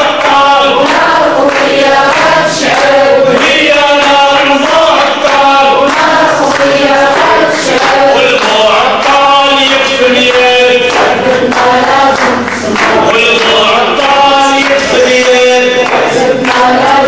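A group of voices singing together in a chant-like melody, in short repeated phrases.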